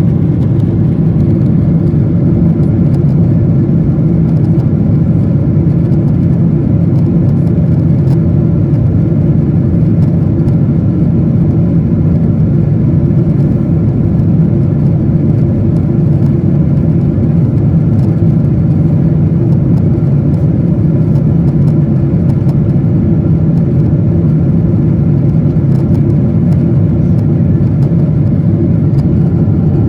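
Aircraft engine noise: a loud, steady drone that holds unchanged throughout.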